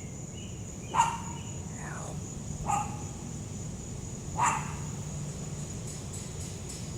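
A dog barking three times, about a second and a half apart, over a steady high insect chirr.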